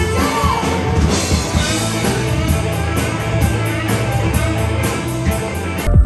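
Background rock music with guitar and a drum kit keeping a steady beat.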